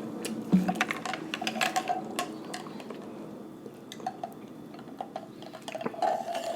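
Close-up wet chewing of a mouthful of fried chicken sandwich, with many small sticky mouth clicks.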